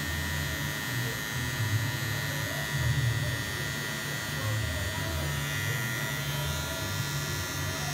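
Electric hair clipper running steadily while cutting short hair, its hum wavering in strength as the blades move through the hair.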